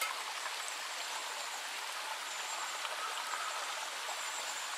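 Steady outdoor background hiss, even and water-like, with faint thin high-pitched notes drifting in and out partway through.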